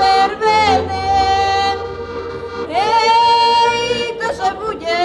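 Female voice singing a folk song in long held notes, the second sliding up into its pitch, over the steady chord of a heligónka, a Slovak diatonic button accordion, played by the singer.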